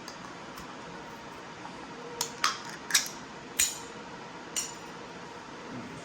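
Kitchen items being handled on a counter: five sharp clinks and knocks in about two and a half seconds, each with a short ring, starting about two seconds in.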